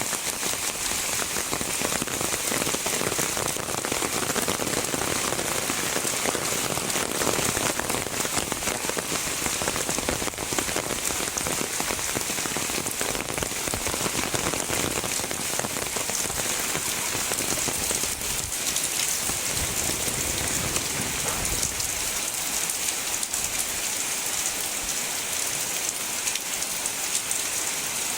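Heavy rain falling steadily, a dense, even patter with no let-up.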